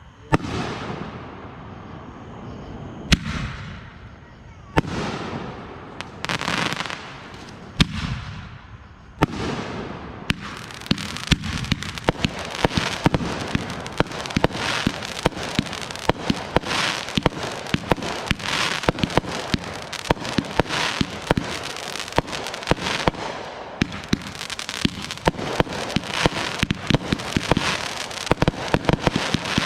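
Consumer aerial fireworks: a series of separate sharp bangs, each followed by a fading crackling hiss, then from about ten seconds in a dense stream of crackling pops and reports.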